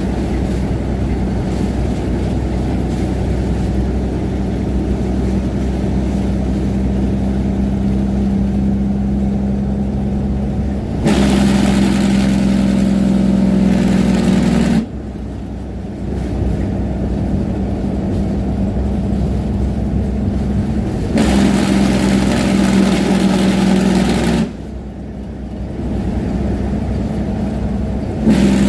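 Diesel semi-truck engine brake barking through a straight-pipe exhaust with no muffler on a long downhill grade: a deep, steady rumble. It turns louder and harsher for a few seconds twice, about 11 and 21 seconds in, each time followed by a brief quieter dip.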